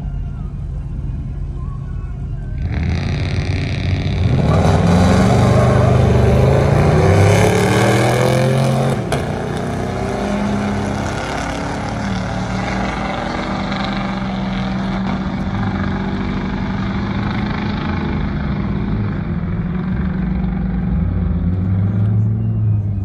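Two pickup trucks drag racing: a Ford F-250 with an emissions-deleted 6.0 Power Stroke V8 turbodiesel and a gas Chevrolet Silverado 1500 idle at the line, launch about three seconds in, and accelerate hard with engine pitch rising. The sound is loudest a few seconds into the run and then fades slowly as the trucks pull away down the strip.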